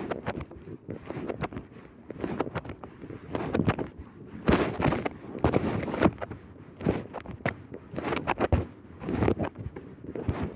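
Handling noise from a phone held against cloth: irregular rubbing and rustling with scattered knocks and bumps.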